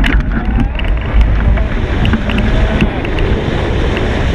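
Wind rushing over the microphone of a camera mounted on a hang glider's wing as the glider takes off and flies: a loud, steady low rumble with scattered clicks from the buffeting.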